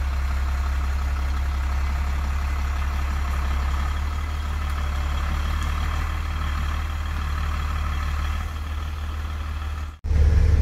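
Off-road camper truck's engine idling steadily with a low, even hum. It cuts off abruptly near the end.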